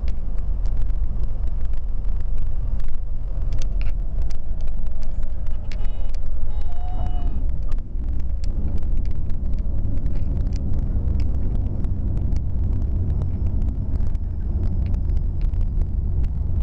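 Cabin noise of a Cessna 182 rolling along the runway: the engine and propeller drone low and steady, with frequent short clicks and knocks over the top.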